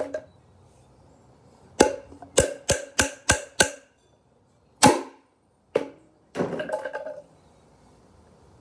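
Sharp plastic clicks from handled toys: six in quick succession, about three a second, then two louder single knocks and a short rattling clatter.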